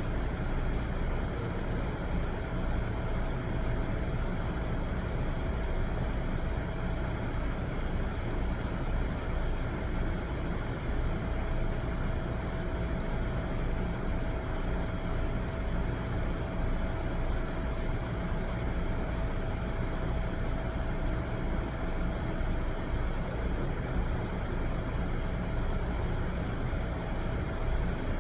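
Steady low rumbling background noise with a faint constant hum, unchanging throughout.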